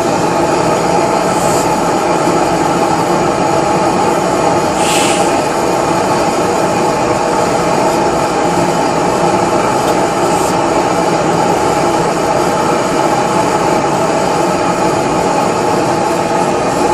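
1940 Lanz Bulldog single-cylinder hot-bulb engine running steadily, with a brief hiss about five seconds in.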